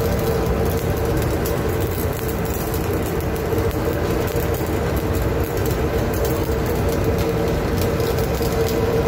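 Steady drone of a ship's machinery, a constant mid-pitched hum over a low rumble, unchanging throughout.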